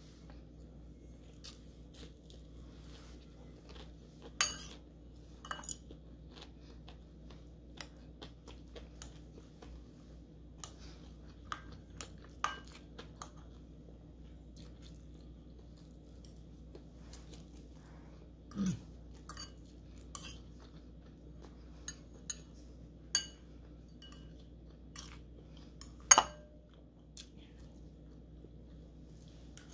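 Metal fork clinking and scraping against a ceramic bowl of pancit noodles in scattered sharp clicks, the loudest about four seconds in and again near the end. Quieter chewing and crunching of a fried egg roll comes between, over a steady low hum.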